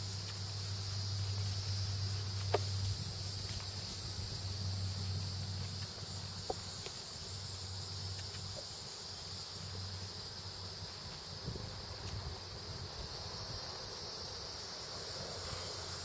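Steady chorus of insects chirring outdoors, a constant high-pitched drone, with a low steady hum underneath and a few faint clicks.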